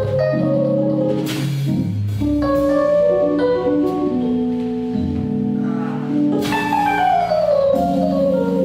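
Jazz piano trio playing a slow ballad: piano chords and melody over double bass, with light cymbal strokes from the drum kit. About six and a half seconds in, the piano plays a descending run.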